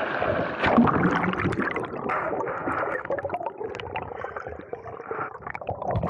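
Stream water rushing and gurgling as a steady wash, with a few short clicks over it.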